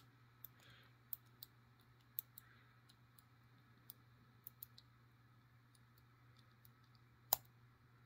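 Faint, scattered clicks of a small brass 28 mm three-digit combination padlock's number wheels being turned while the shackle is held under tension. One sharper click near the end as a wheel falls into a gate.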